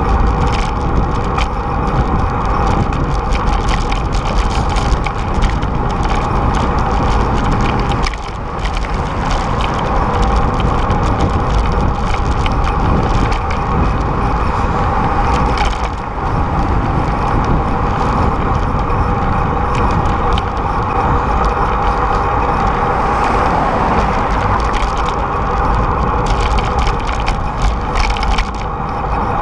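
Wind and road vibration on a bicycle-mounted camera's microphone while riding: a loud, steady rushing rumble with a running crackle, easing briefly about eight and sixteen seconds in.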